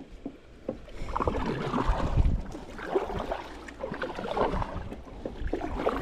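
Kayak being paddled: the paddle blades splash and swish through the water in repeated strokes, with low thuds mixed in.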